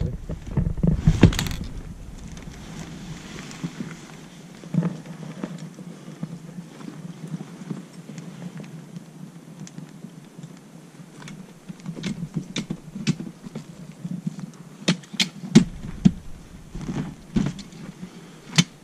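Thule Tepui fold-out rooftop tent flipped open by pulling on its ladder: a loud rush of fabric and frame movement in the first couple of seconds, then softer rustling. In the second half, a run of sharp metallic clicks and knocks as the telescoping ladder is extended.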